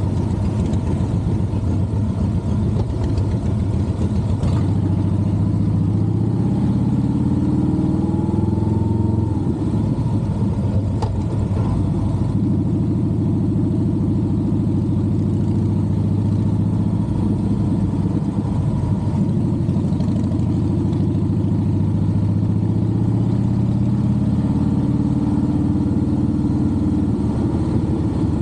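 Cruiser motorcycle engine running while riding, its note rising and falling several times as the rider speeds up and slows down.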